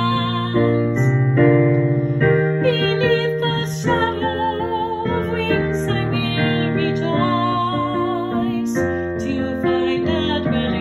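A hymn sung by a voice with vibrato over a piano accompaniment of sustained chords.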